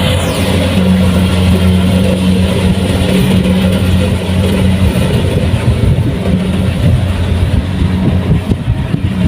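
Kubota rice combine harvester's diesel engine running at a steady speed, a constant low hum with no change in pitch.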